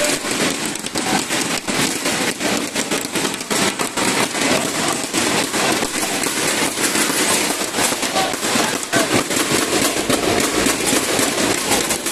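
Crowd applauding, a dense, steady patter of many claps.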